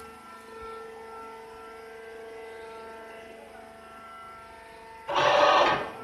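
Steady machinery hum, with a loud burst of rushing noise lasting under a second about five seconds in.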